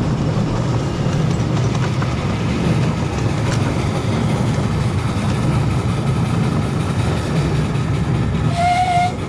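Narrow-gauge locomotive running with a steady low rumble, a few faint clicks over it. Near the end the locomotive gives one short toot, about half a second long.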